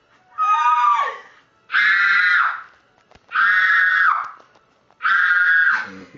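A young woman screaming with excitement: four high-pitched shrieks of about a second each, with short pauses between.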